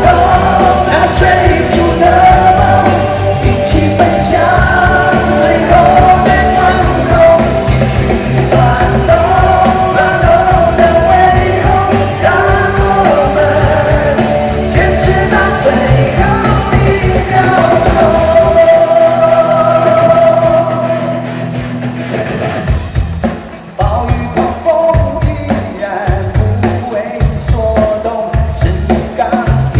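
A male vocalist singing a rock song live into a handheld microphone, amplified over full band backing. About two-thirds of the way through, the drums and bass drop away for a few seconds, then come back in.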